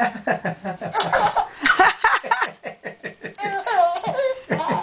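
A nearly three-month-old baby laughing heartily in quick, repeated bursts.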